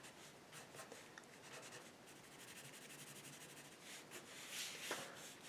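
Faint scratching of a pencil drawing on paper, a run of short sketching strokes, a little louder about four to five seconds in.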